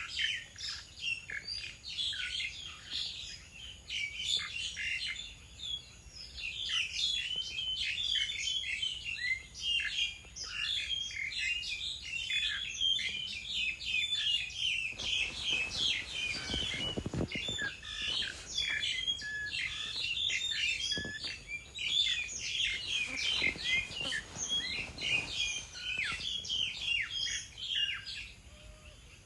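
Many small birds chirping and twittering at once in a dense, continuous chorus of short high calls. About halfway through, a brief rushing noise rises under the chirps, and a fainter one follows some seconds later.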